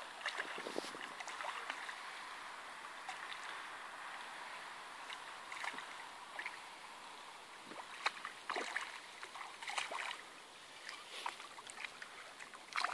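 Hooked fish splashing at the water surface as it is played in toward the bank: faint, scattered splashes and small knocks over a steady background hiss.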